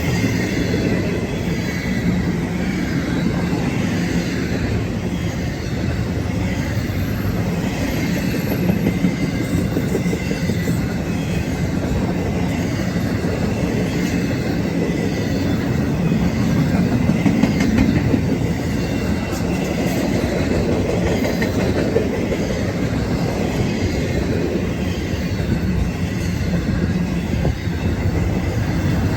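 Norfolk Southern freight train's cars rolling past: a steady rumble and clatter of wheels on rail, with faint high wheel squeal.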